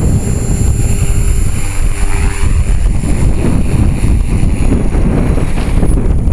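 Wind buffeting the microphone, with the thin, steady high whine of a 450-size electric RC helicopter's motor and rotors underneath.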